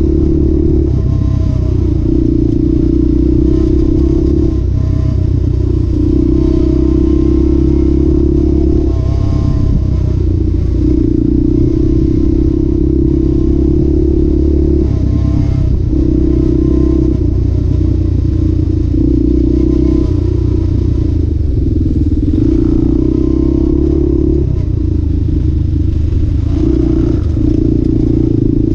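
ATV engine running hard on a dirt trail. The throttle opens and eases off every couple of seconds, with the machine rattling over the ground.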